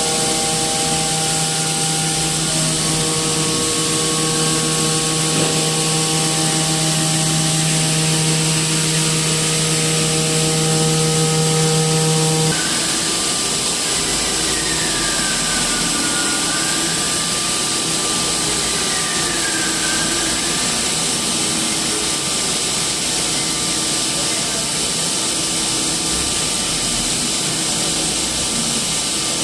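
Hot-air plastic welding gun blowing steadily: a continuous airy hiss with a motor hum under it, which changes abruptly about twelve seconds in.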